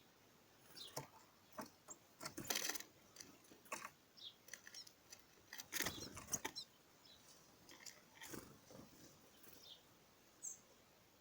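Garden birds feeding: a scatter of short taps and rustles, busiest about two and six seconds in, with a few brief high chirps.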